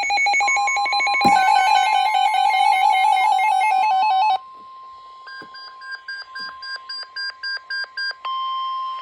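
Emergency Alert System alert tones. A fast, trilling, ring-like beep pattern plays for the first four seconds or so while a single steady tone starts beneath it. The trill then stops, and a quick string of short higher beeps sounds over the steady tone.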